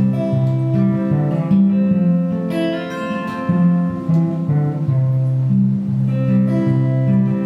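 Instrumental break of a song without singing: guitar chords and bass notes.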